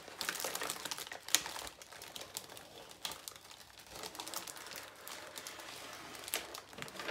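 Paper and plastic-film covering of a rolled diamond painting canvas crinkling and rustling as it is handled, lifted and unrolled, with irregular sharp crackles.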